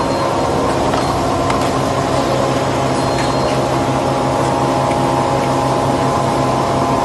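Automatic tissue-paper feeding machinery running with a steady, even hum, with a few faint clicks from its mechanisms in the first few seconds.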